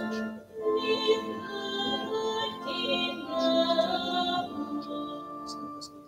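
Church music: a slow offertory hymn sung in long held notes, with a short break between phrases about half a second in.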